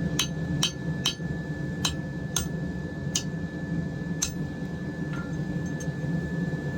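Light metal-on-metal clinks, about eight, unevenly spaced and mostly in the first four seconds or so: a small high carbon steel bar being set against the split wrought iron billet it is meant to fit into. A steady low hum and a faint high steady tone run underneath.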